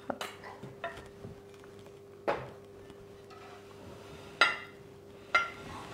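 A kitchen knife and a ceramic serving platter clinking and knocking as they are handled: about five sharp clinks with a short ring, the loudest two near the end, over a faint steady hum.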